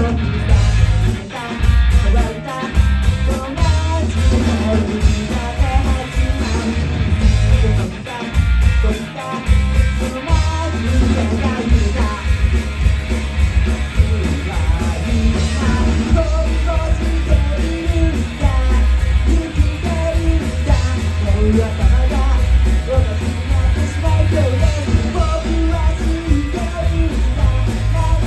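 Rock band playing live: distorted electric guitars, bass and drums driving a fast punk-rock song, with a singer's voice over it.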